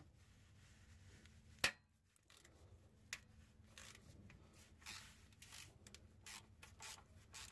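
Ratchet and 13mm socket working a starter mounting bolt loose, mostly faint: one sharp metallic click about one and a half seconds in, a smaller one about three seconds in, then scattered faint clicks and scrapes.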